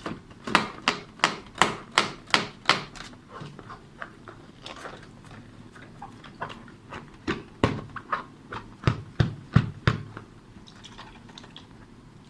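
Slime being pressed and squeezed by hand, giving sharp wet clicks and pops about three a second, with a run of seven near the start and another burst after a quieter stretch.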